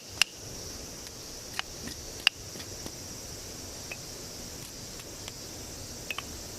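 Campfire crackling: sharp wood pops at irregular intervals, a few seconds apart and sometimes in quick pairs, over a steady high hiss.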